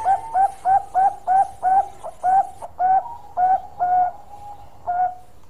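Zebra dove (Bangkok perkutut) singing: a run of short coos, about three a second, spacing out in the second half, with a last note about five seconds in.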